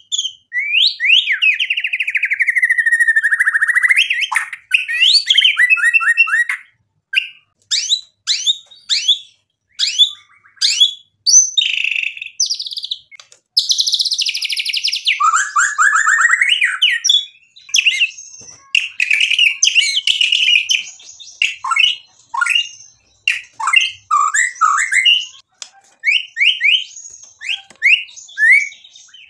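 White-rumped shama singing a long, varied song of gliding whistles, rapid trills and sharp clipped notes, one phrase after another with short pauses between.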